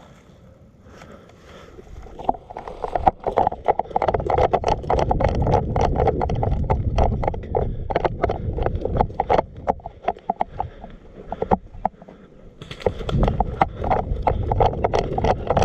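Running footsteps with gear jolting and rattling, in a fast uneven beat. They go for about ten seconds, stop briefly, then start again near the end.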